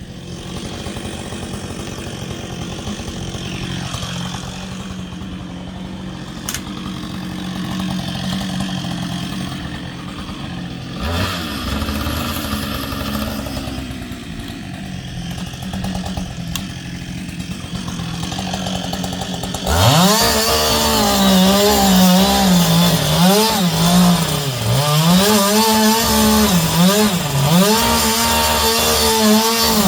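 Chainsaw engine running steadily, then about two-thirds of the way through it suddenly gets much louder, its pitch repeatedly dipping and recovering as it is loaded in a cut.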